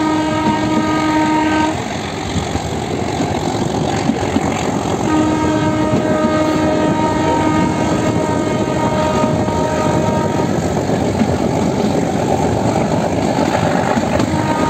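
Train horn sounding over the steady rumble of coaches rolling on the rails. One blast cuts off about two seconds in, and a second, longer blast starts about five seconds in and lasts about five seconds.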